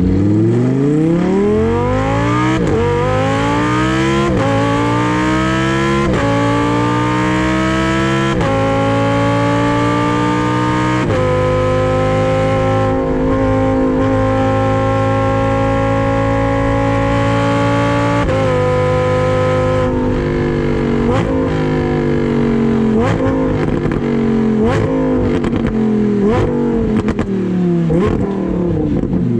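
Lamborghini Huracán Performante's 5.2-litre V10 exhaust accelerating hard, its note climbing through about five quick upshifts. It holds a steady cruise, then slows with a run of throttle-blipped downshifts.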